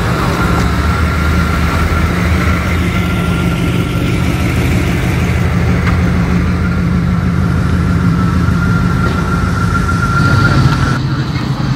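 Car engine running at a steady idle, with a steady high-pitched whine above it that stops near the end.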